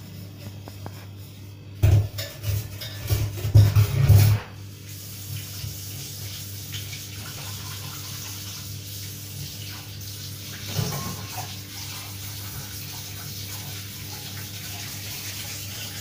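Knocking and clattering for about the first four seconds, then a steady low electrical hum with a faint hiss over it from a running appliance.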